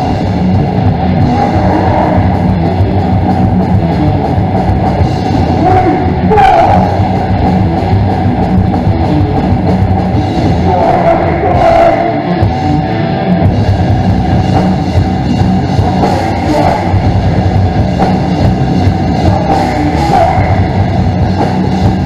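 Hardcore/metal band playing live and loud: electric guitar and drum kit, with a vocalist shouting into the microphone at times.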